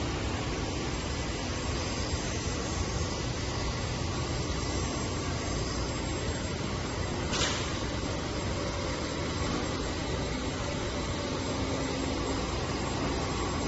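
CNC knife grinding machine running with a steady, even machine noise, and one short sharp scrape about seven seconds in.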